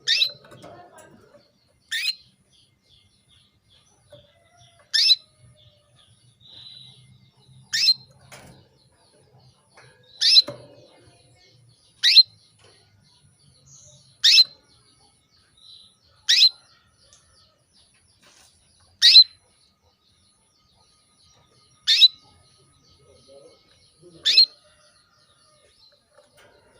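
Female canary repeating a single short, sharp chirp that sweeps quickly down in pitch, about every two to three seconds: a hen in breeding condition calling to a male.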